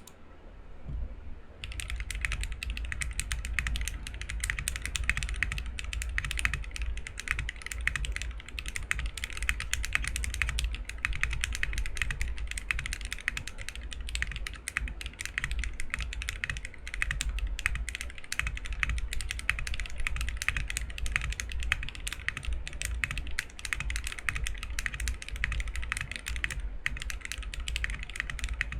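Continuous typing on a mechanical keyboard fitted with Akko x HMX Stellar Rose switches: a top-mount KFA Freebird TKL with a POM plate and ePBT keycaps, giving a deep clacky sound. The typing starts about two seconds in, over a low steady hum.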